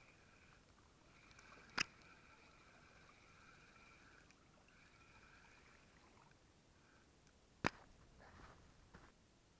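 Faint whir of a spinning reel being cranked to retrieve a hooked bass, stopping about six seconds in. Two sharp clicks, one about two seconds in and one near the end, then a faint rustle as the fish is lifted out.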